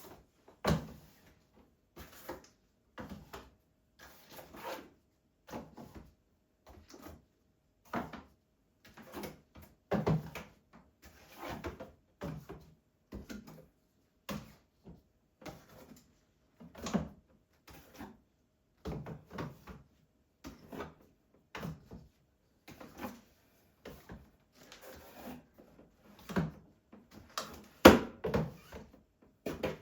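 Objects being handled and set down: irregular short knocks and clunks with quiet gaps between them, the loudest one near the end.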